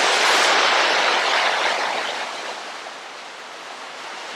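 Sea waves breaking and washing over a rocky shore, a loud rush that swells in the first two seconds and then recedes to a softer wash.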